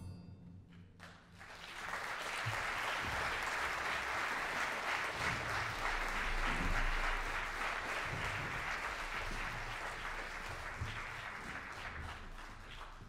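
Audience applause. It starts about a second and a half after the band's last chord dies away, holds steady, then slowly thins out near the end.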